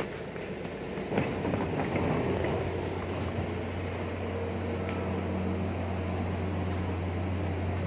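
PNR diesel train standing at the platform with its engine running: a steady low hum that comes up about two seconds in. Over the first few seconds there are knocks and clatter as passengers get off.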